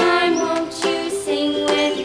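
Cheerful children's background music with a melody over a steady beat.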